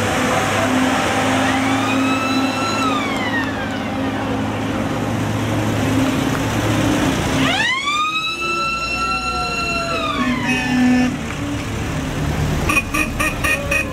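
A mechanical siren wails twice over the low running of WWII military trucks and jeeps: a short rise and fall about two seconds in, then a longer wail that climbs sharply, holds a steady pitch and winds back down. Near the end comes a quick run of short toots.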